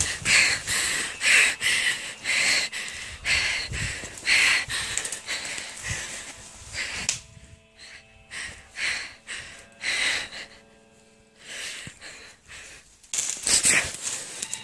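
A person breathing hard and fast, panting in short hissing breaths, as from running through snow. The panting eases off in a quieter stretch with a faint steady hum midway and comes back strongly near the end.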